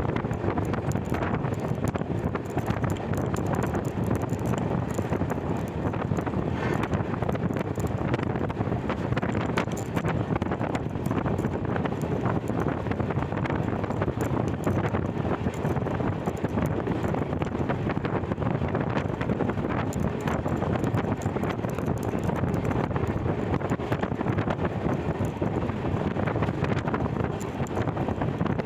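Wind buffeting the microphone, held out of the open door or window of a moving passenger train, over the train's steady running noise.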